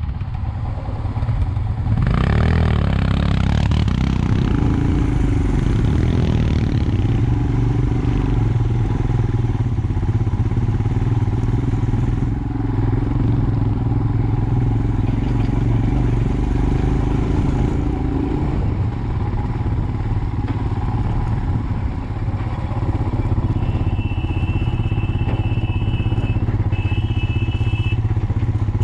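Motorcycle engine running steadily while riding a rough mountain road, picking up sharply about two seconds in.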